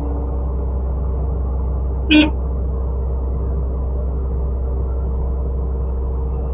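Excavator's diesel engine running steadily, heard from inside the cab as a low rumble. A single short, sharp click or knock comes about two seconds in.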